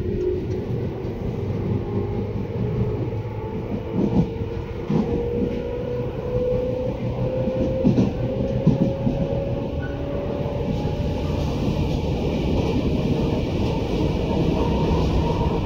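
Tobu 10030 series electric train running, heard from inside the car: a whine from the traction motors rises slowly in pitch as the train gathers speed over a steady rumble, and several sharp clicks come from the wheels over the rail joints.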